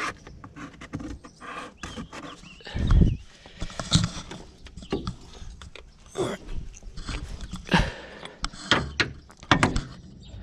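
Scattered knocks and clicks of hand tools and metal suspension parts being handled, with one heavy thump about three seconds in and sharp knocks near the end.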